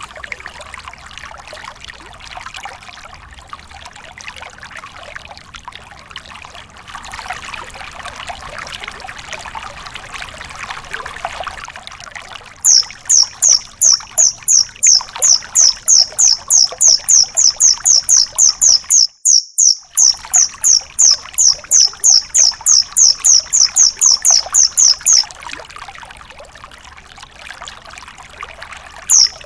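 Trickling water, then a songbird repeating a sharp, high, falling call about three to four times a second for some twelve seconds. The run breaks off briefly once and starts again at the very end. It is the rapid 'tembakan' (shooting) kind of call that is played to cage songbirds to tutor them.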